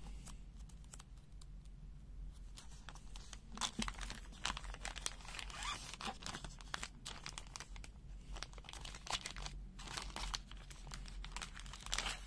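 Clear plastic bag crinkling and tearing in irregular bursts as it is opened and handled.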